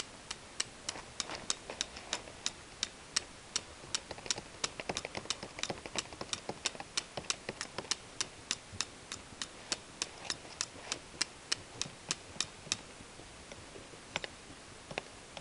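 Rapid, even knife scrapes during fire-lighting preparation, about three or four short sharp strokes a second, stopping about two seconds before the end.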